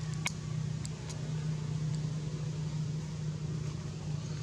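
Steady low hum of a running motor, with a few faint sharp clicks in the first second.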